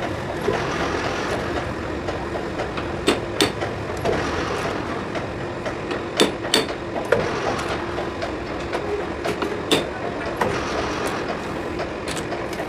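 Sharp metal clinks and knocks of a T-handle chuck key being fitted and turned in a lathe's three-jaw chuck as it is tightened on the bar, a few separate strikes, over a steady machine hum.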